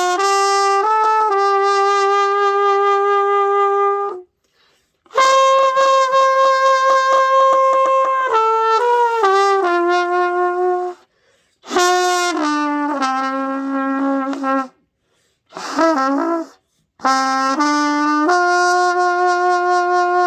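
Beginner's trumpet playing a slow hymn melody in long held notes, phrase by phrase with short breath pauses. One note wavers and bends about three quarters of the way through. The player says the tone is leaking because his lips are not sealed tightly on the mouthpiece.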